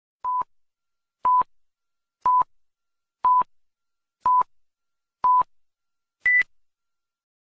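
Film countdown leader beeps: a short beep once a second, six times at the same pitch, then a final beep at a higher pitch as the count reaches zero.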